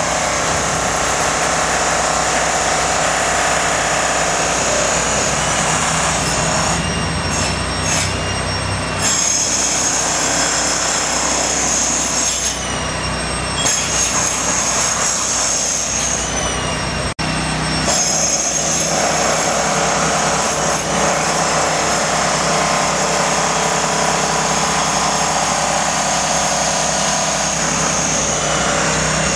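An engine running steadily with a constant low hum. A high-pitched whine on top drops out and returns several times.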